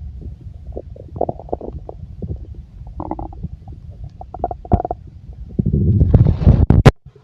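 A human stomach gurgling and rumbling: a low rumble with irregular bubbly pops. It swells louder about six seconds in, then cuts off abruptly near the end.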